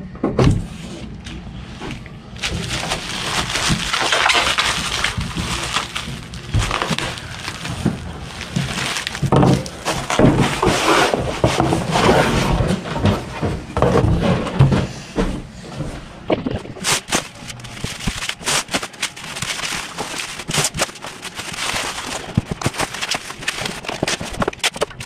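Plastic bubble wrap rustling and crackling and a cardboard shipping box being handled while a laptop is packed, with sharper clicks and knocks in the last part.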